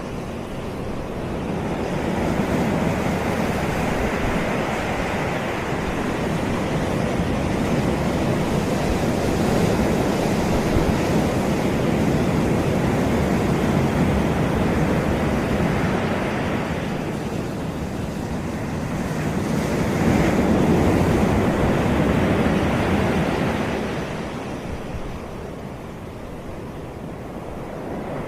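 Caribbean sea waves washing onto a beach, swelling and ebbing slowly over several seconds, with two broad surges about twenty seconds apart; a little wind on the microphone.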